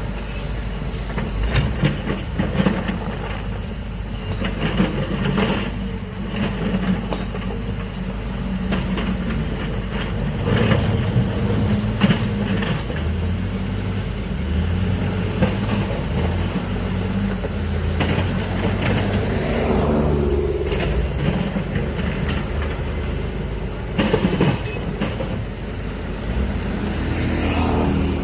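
Heavy excavator working: its diesel engine runs steadily with pitch changes as it loads up, while metal knocks and clanks sound again and again, loudest around the middle and near the end.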